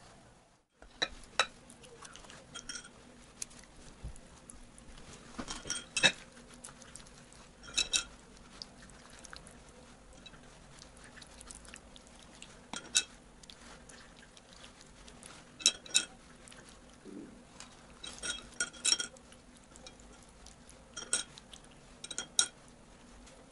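Basting brush clinking and scraping against glass bowls as it is dipped in sauce and drawn over the meat: short ringing clinks every few seconds, often in pairs.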